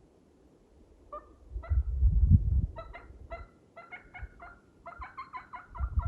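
A wild Merriam's turkey calling: single notes a half-second or so apart that quicken into a fast rattling run of notes near the end, like a gobble. A loud low rumble comes about two seconds in and again near the end.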